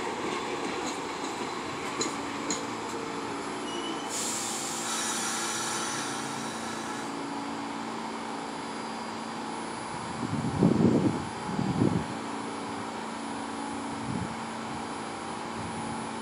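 New York City subway train on a nearby track, moving slowly and braking: a steady rumble with a low motor hum. A burst of air hissing comes about four seconds in, and two loud low thumps come about ten and twelve seconds in.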